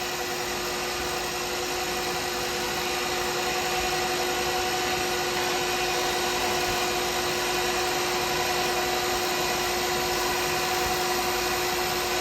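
A lathe running with a steady motor hum while a turning tool cuts a spinning cast pen blank, giving a continuous cutting hiss.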